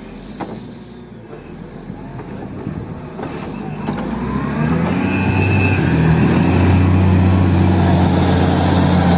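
Motor grader's diesel engine running, getting louder over the first five or six seconds, then holding a steady low hum.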